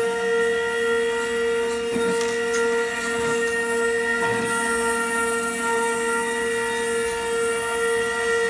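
Othermill Pro desktop CNC mill running, its spindle whining at one steady high pitch while the end mill cuts copper-clad FR4 circuit board.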